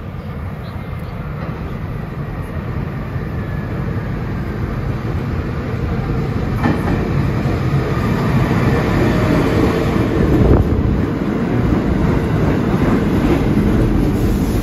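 R68-series New York City subway train pulling into an underground station, its rumble growing steadily louder as it approaches and runs along the platform. The wheels clatter over the rail joints, with sharp knocks about six and ten seconds in.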